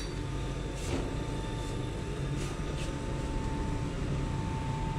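Steady low background rumble with a constant hum at one pitch, and a few brief hissy sounds about one, two and a half, and three seconds in.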